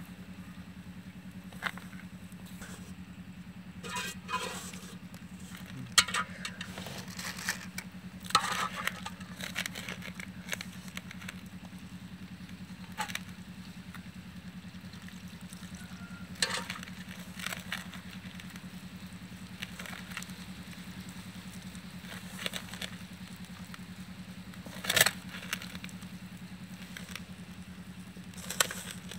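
Shredded banana flower being kneaded by hand with gram flour in a steel bowl: irregular rustling, crunching and scraping of the fibres and fingers against the bowl, with a few sharper clicks. A steady low hum runs underneath.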